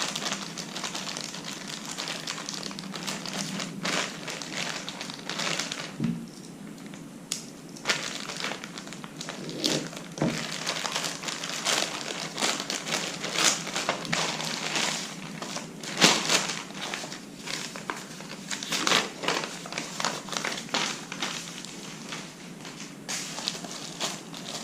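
A package being opened and handled by hand: irregular crinkling and rustling of packaging with scattered sharp taps and clicks.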